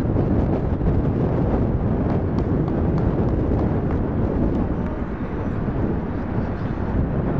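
Wind buffeting the microphone: a dense, low rushing noise that eases slightly about five seconds in.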